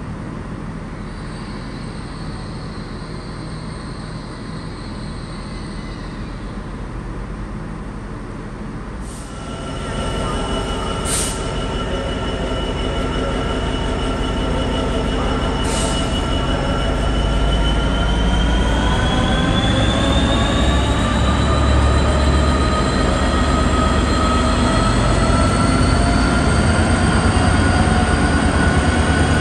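Class 66 diesel-electric freight locomotive with its two-stroke V12 engine, pulling away under power; its engine note rises steadily and then holds high and loud. Before it, about nine seconds of a quieter, steady railway rumble.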